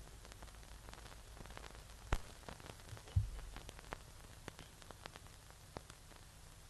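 Faint hiss and low hum with scattered crackling clicks, a sharper click about two seconds in and a low thump about a second later.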